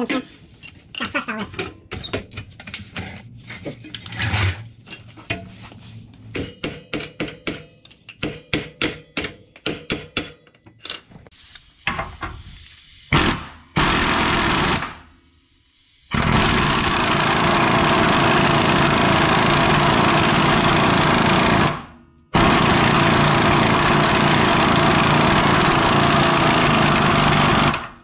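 A series of short metallic knocks and clicks, then a handheld power tool runs with a jackhammer-like rattle in two long runs of about five to six seconds each.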